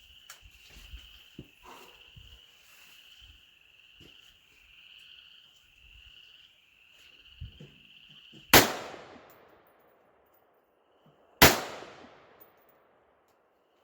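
Two gunshots about three seconds apart, each sharp and loud with a long echoing tail. Before them a steady high-pitched insect buzz.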